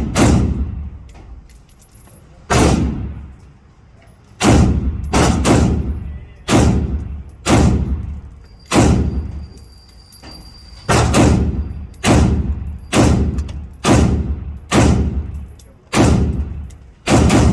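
Daniel Defense MK18 short-barrelled 5.56 carbine firing about twenty aimed semi-automatic shots, slowly at first, then at a steady pace of a little more than one a second. Each shot cracks sharply and rings out with a long echo.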